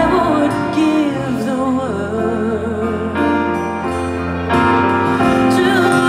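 A woman singing live into a microphone, holding long notes with vibrato, over a soft sustained instrumental accompaniment.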